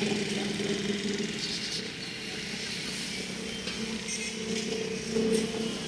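A steady low engine hum over background street noise.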